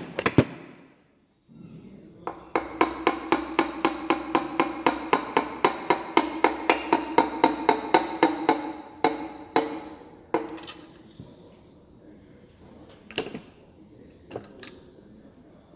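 A piston of a 2.0 Duratec engine being tapped down through a ratcheting piston ring compressor into its bore with a wooden handle. About two seconds in, quick light taps start at about five a second, each one ringing with a metallic tone. After about six seconds they give way to a few slower, separate knocks.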